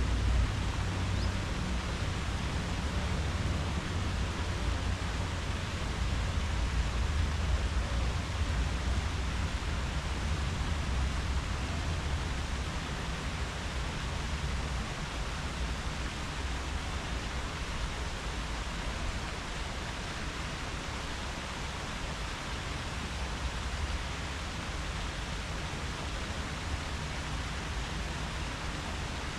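Steady wind rustling through tree leaves, with a low rumble underneath that eases slightly in the second half.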